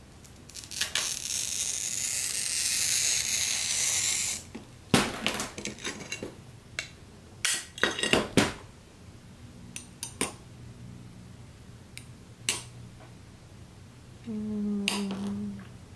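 Hand glass cutter scoring a line across a sheet of fusing glass: a steady scratchy hiss lasting about four seconds. About five seconds in, the glass snaps along the score with a sharp crack, followed by scattered light clinks and taps as the cut glass strip is handled and set down.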